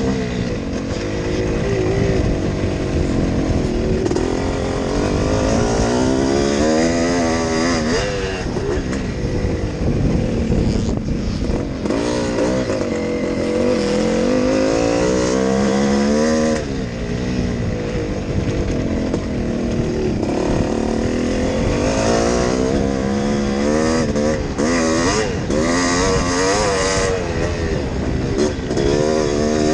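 Yamaha YZ465G two-stroke single-cylinder motocross engine under race load, revving up and falling back over and over as the rider works the throttle and gears, with a couple of brief throttle cuts. Wind rushes over the helmet-mounted microphone.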